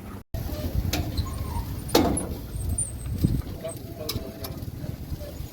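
Busy background noise: a steady low rumble with indistinct voices and a few sharp knocks.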